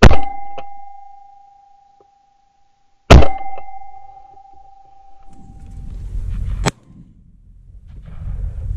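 Two loud shotgun shots about three seconds apart, each leaving a ringing tone that fades away over a second or more. In the second half wind buffets the microphone with a low rumble that breaks off sharply and returns.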